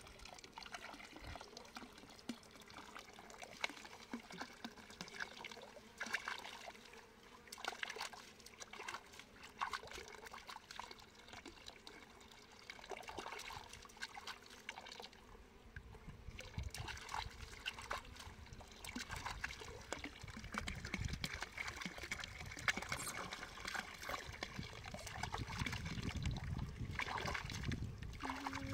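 Water trickling and splashing, with many scattered small clicks and knocks; a low rumble joins about halfway through and grows toward the end.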